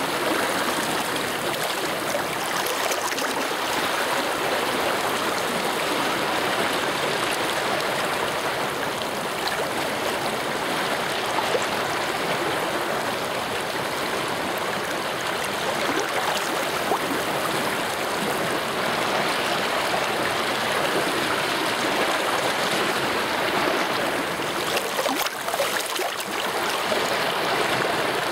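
Rain-swollen mountain stream rushing fast over and around stones, a steady, even roar of turbulent water.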